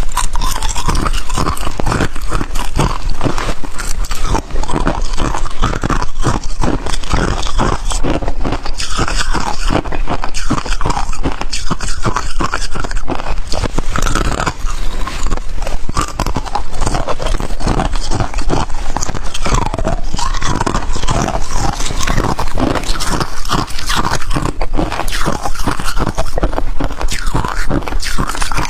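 Close-miked biting and chewing of freezer frost and ice: a dense, unbroken run of crunches.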